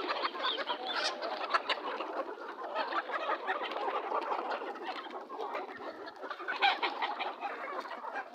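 A flock of chickens clucking and chirping together as one continuous din, with many small sharp clicks mixed in.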